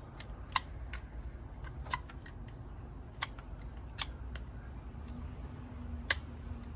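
Scattered sharp metallic ticks and clicks, about five of them, the loudest about six seconds in: a knife blade tapping and scraping around a freshly soldered N connector's pin and body, checking that no stray solder is left on the outer edge.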